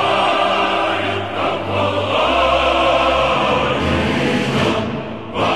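Choral music: a choir singing sustained notes over a deep bass accompaniment, dipping briefly about five seconds in.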